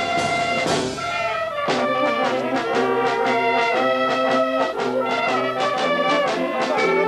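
Brass band music with a steady beat, trumpets and trombones playing held notes; a new phrase starts about a second and a half in.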